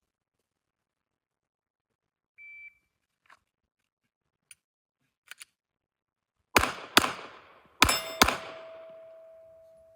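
Shot-timer start beep, then a few light clicks, and about four seconds later four 9mm shots from a Glock 19 pistol in two quick pairs, the last pair setting a steel target ringing on and fading. The slow first shot comes from starting with no round in the chamber.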